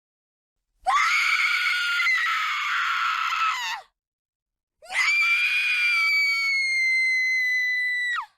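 A woman screaming in terror, twice: a scream of about three seconds, then after a short gap a longer, steadier high-pitched scream that drops in pitch as it cuts off.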